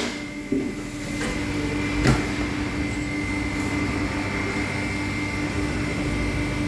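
Steady machine hum with a constant pitch, broken by a sharp click at the start and another about two seconds in.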